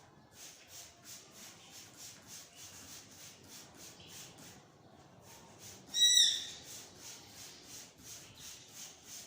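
Hand-pumped spray bottle misting phenyl disinfectant in quick repeated squirts, about three a second. About six seconds in there is one loud, short, high-pitched squeak.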